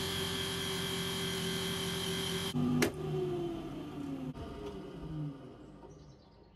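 Electric motor of a vintage buffing machine running steadily with a high whine, then a sharp click from its stop button just before 3 s in. The motor and polishing wheel then spin down, their hum falling in pitch and fading over about two seconds.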